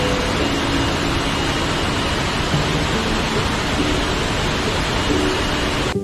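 Steady roar of a large multi-tiered waterfall, the water crashing down over several rock tiers into pools.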